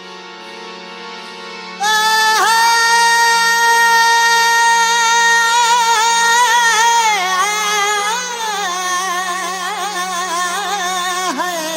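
Sufi folk music: over a soft steady drone, a high melodic line enters about two seconds in, holds one long note and then winds into quick ornamented turns.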